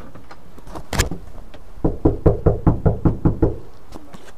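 Knuckles knocking on a front door: one sharp knock about a second in, then a quick run of about eight knocks at roughly five a second.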